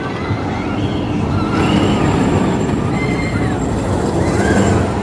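A roller coaster train running along its track, a dense rumble that swells to a rushing peak from about a second and a half in, with high shouts rising and falling over it.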